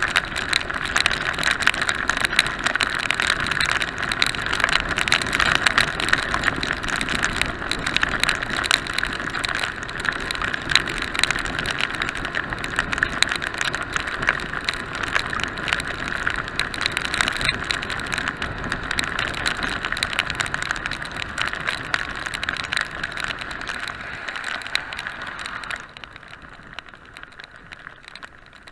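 Wind rush and rain on a motorcycle-mounted action camera at road speed: a steady hiss thick with the crackle of raindrops striking the camera. It drops off sharply near the end as the motorcycle slows.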